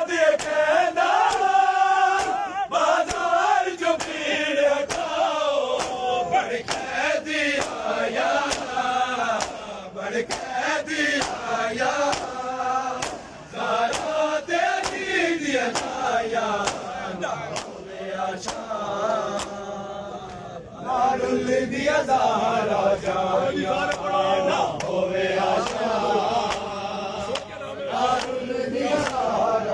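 A crowd of men chanting a noha, a Shia lament, together, with a steady beat of sharp slaps from matam, hands striking bare chests.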